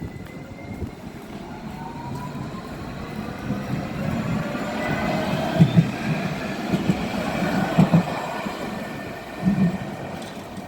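Electric tram pulling away: its traction motors whine, rising in pitch as it accelerates, over a growing rumble of wheels on rail with a few dull thuds as the wheels pass over joints.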